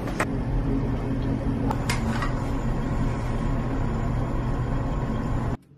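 A steady low mechanical hum over a wash of background noise, with a couple of brief clicks; it cuts off abruptly near the end.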